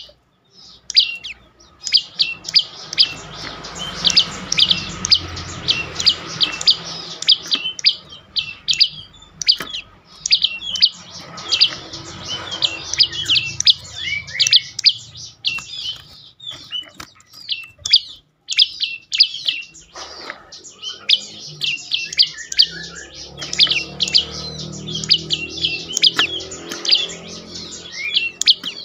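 Prenjak lumut (a small prinia-type songbird) calling in fast runs of short, sharp, high chirps, the rattling 'dor' call, broken by brief pauses every few seconds.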